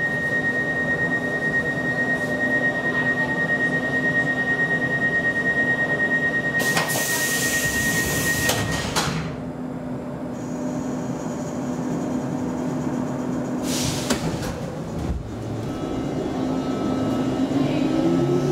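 Stockholm Metro C14 train starting out of a station, heard from inside the carriage: a steady high tone while it stands with doors open, a burst of air hiss as the sliding doors close, a second shorter hiss, then motor whine rising in pitch as the train pulls away near the end.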